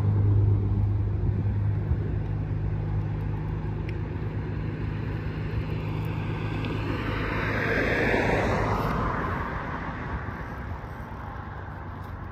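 A car passes on the road close by: its engine and tyre noise swells to a peak about eight seconds in and then fades. A steady low hum runs underneath.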